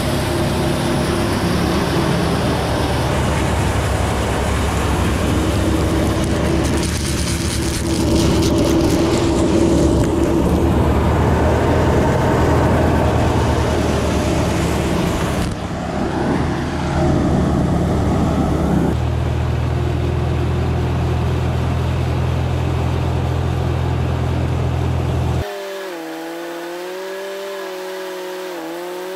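Tractor-driven thresher running while it threshes mustard plants: a loud, steady machine noise over the tractor engine's hum. About 25 seconds in, the sound cuts to a quieter, thinner, higher-pitched whine that wavers in pitch.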